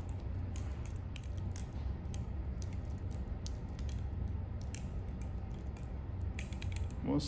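Vandir Paim balisong (butterfly knife) being flipped: irregular light clicks and clacks as the handles and blade swing and knock together, several in quick succession near the end, over a steady low hum.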